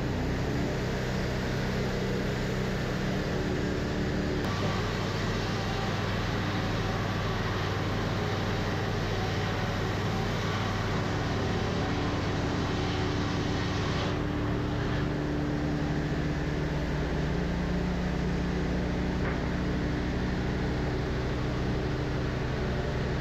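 Woodmizer LT40 band sawmill running steadily under load as it saws lumber. Its engine note shifts in pitch about four seconds in and again about midway.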